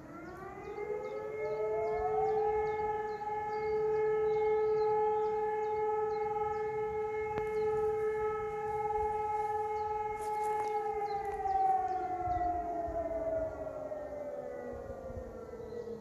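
Civil-defence warning sirens, an E57 motor siren together with an electronic HES 600, winding up at two different pitches, holding a steady wail, then winding slowly down from about ten seconds in. Faint birdsong chirps above.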